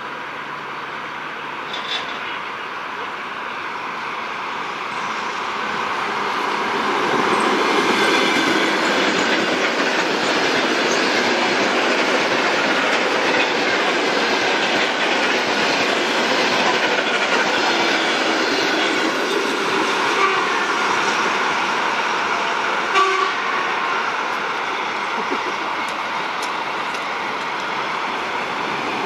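Suburban electric multiple-unit trains (ED2T, then ED4M) passing close on the tracks: a steady rush of wheels and running gear with rail clatter, growing louder from about six seconds in and staying loud.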